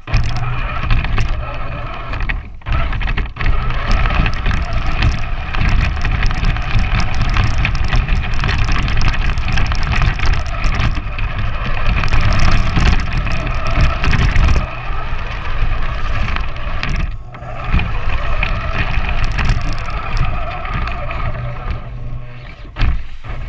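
Electric motor and gearbox of a large battery-powered RC 4x4 truck whining steadily as it drives through snow, heard close from a camera mounted on the truck, with a heavy low rumble from the ride. The whine drops out briefly about two and a half seconds in, again past the middle, and near the end.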